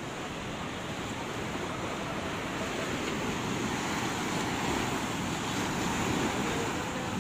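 Ocean surf breaking and washing up a sandy beach: a steady rush that swells slowly to its loudest past the middle and eases a little near the end.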